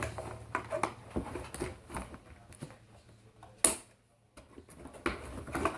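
Scattered clicks and knocks of a plastic toy blaster and its packaging being handled while unboxing, with one sharper click a little past the middle.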